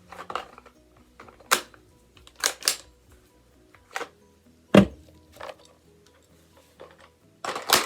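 Sharp metallic clicks and knocks from handling a rifle with a steel bipod: about ten separate clacks, a heavier thud about five seconds in, and a quick run of clicks near the end.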